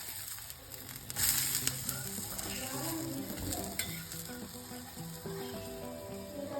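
Dosa sizzling on a hot tawa, with a loud burst of high sizzling about a second in that then settles to a steady sizzle. Soft background music plays underneath.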